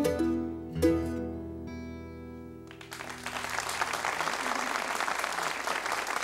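F-style mandolin and acoustic guitar playing the last notes of a tune, ending on a final chord that rings out and fades for about two seconds. About three seconds in, the audience starts applauding.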